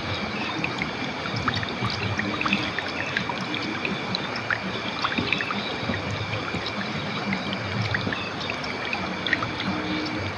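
River water flowing over rocks: a steady rush with many small splashes and drips throughout.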